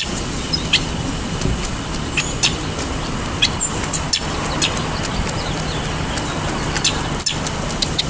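Wild turkey pecking birdseed off an asphalt path: short, sharp taps of its beak on the pavement at irregular intervals, over a steady low background rumble.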